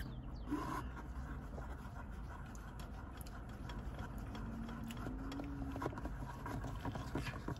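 Steady low hum inside a car, with a faint sip through a drinking straw at the start and scattered small clicks from handling the drink.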